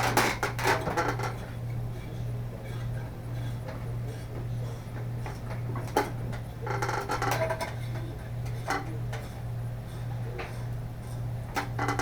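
Light bulbs and fixture parts being handled: scattered small glassy clicks and taps over a steady low hum.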